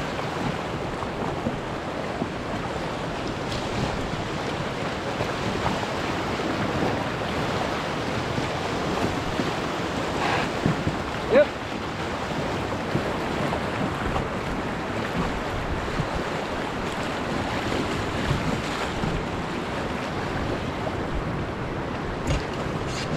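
Whitewater of a river rapid rushing steadily, with wind buffeting the microphone. A brief sharp sound stands out about eleven seconds in.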